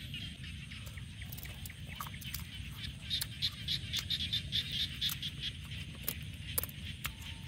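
A steady pulsing chorus of calling animals, swelling in the middle, over a low steady background noise, with scattered sharp clicks of chewing close to the microphone as a grilled frog leg is bitten and eaten.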